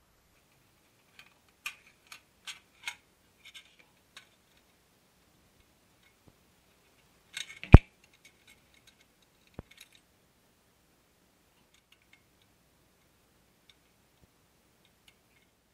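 Metal parts of an old Stube scale being handled and taken apart, giving scattered small clicks and clinks, with one sharp knock a little under eight seconds in, the loudest sound, and a fainter one about two seconds later.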